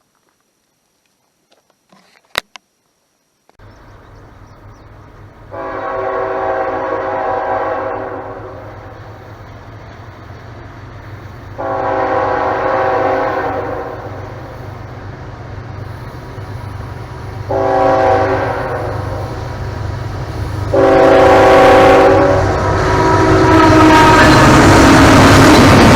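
Norfolk Southern diesel locomotive approaching: its low engine rumble comes in a few seconds in, then its air horn sounds long, long, short, long, the standard signal for a grade crossing. The train's noise grows loud near the end as it draws close.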